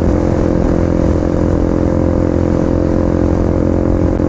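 KTM RC 250's single-cylinder four-stroke engine running at steady revs while the motorcycle is ridden along.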